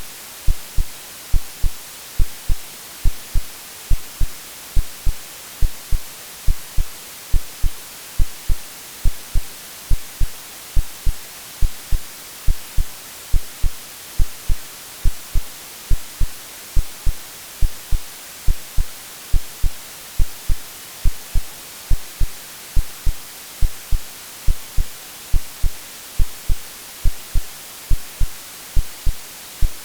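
Synthesized heartbeat: a steady rhythm of low, soft thumps, a little under two a second, over a constant white-noise hiss. It is a womb-like sleep sound for calming babies.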